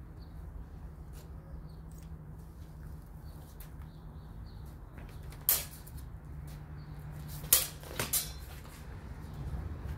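Broadswords clashing in sparring: one sharp clash about halfway through, then a quick flurry of three clashes near the end, each with a short ring.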